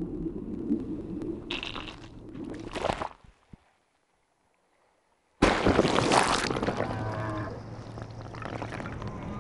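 Underwater recording from a suction-cup DTAG on a humpback whale: low rumbling water noise with a rushing sound, then about two seconds of silence, then a sudden loud burst of rushing noise. Humpback whale calls follow, pitched tones with harmonics that slide downward.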